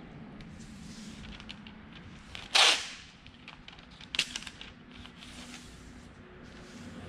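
Masking tape pulled off the roll in one loud, quick rip about two and a half seconds in, and a shorter rip about four seconds in, with light rustling and ticking of paper and tape being pressed down in between.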